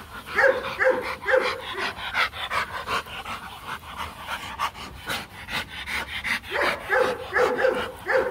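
Rottweilers panting hard in quick, rhythmic breaths, about two to three a second, some of them voiced, on a very hot day.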